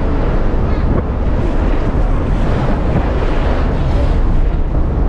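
Loud, steady wind buffeting the microphone, a deep rushing noise with no distinct events.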